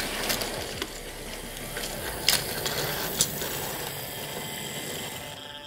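Hornby 00-gauge model train running over a set of points: a steady mechanical rattle of the wagons rolling, broken by sharp wheel clicks as they cross the rail gaps, the loudest about two and three seconds in.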